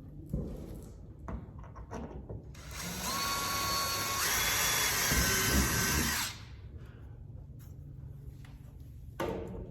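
Power drill running for about three and a half seconds, drilling a hole, its motor whine stepping up in pitch partway through. A few short knocks and clicks come before it and one near the end.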